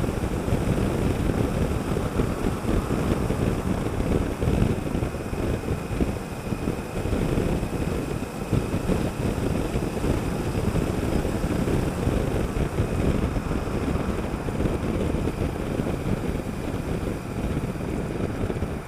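Steady wind rush on the microphone of a motorcycle being ridden at speed, with the Honda Africa Twin CRF1000L's parallel-twin engine and road noise underneath.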